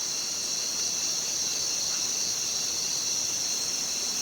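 Night insect chorus in the forest, a steady high-pitched shrill that holds level without a break.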